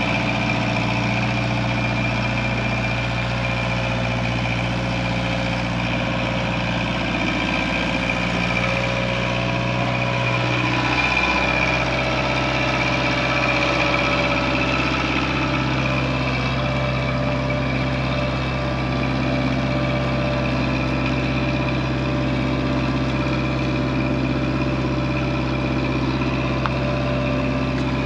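Genie telehandler forklift's engine running steadily at low speed while it tows a truck on a chain; its pitch steps up slightly about eleven seconds in.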